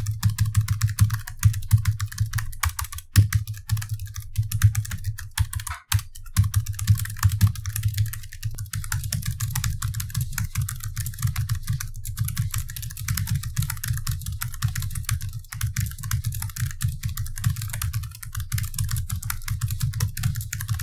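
Fast typing on the Illegear Onyx M laptop's built-in mechanical keyboard: a dense, continuous run of key clicks, pausing briefly about three and six seconds in. The switches are clicky and tactile and noisy, although the maker sells them as silent.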